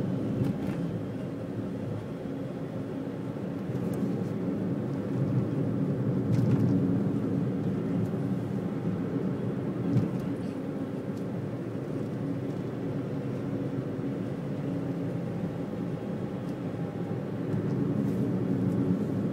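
Car driving at road speed, heard from inside the cabin: steady engine hum and tyre noise, with one brief knock about halfway through.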